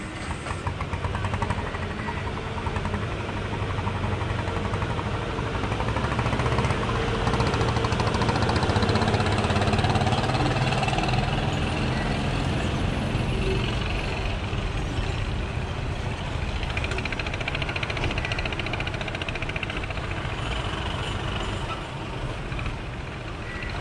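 Diesel engines of a KSRTC bus and then a white box truck working slowly round a hairpin bend; the low engine rumble swells to its loudest about ten seconds in as the bus comes round, then carries on more evenly as the truck turns.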